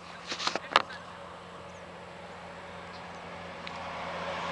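A few sharp knocks in the first second as the camera is set down on a car's hood, then a steady outdoor hiss that slowly grows louder.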